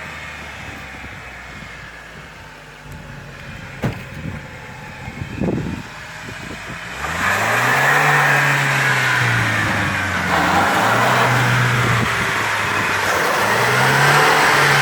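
Off-road 4x4's engine running quietly with a few knocks, then about seven seconds in revving hard in three surges, pitch rising and falling, over a rushing noise, as the vehicle tries to drive free after bellying out on its axle in mud.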